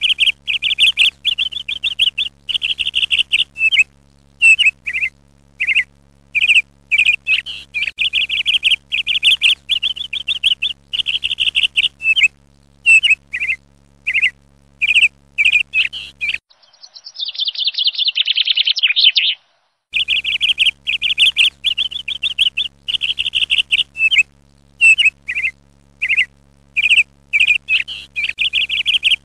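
Birds chirping in quick runs of short, high notes, with brief gaps between runs. For about three seconds past the middle a different, higher twittering call takes over.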